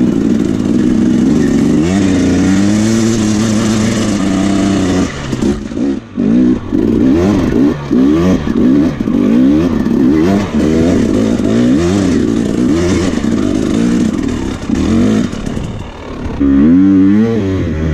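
KTM dirt bike engine revving up and down over and over under load while climbing a rocky single-track hill, with short drops where the throttle is shut and a hard rev near the end.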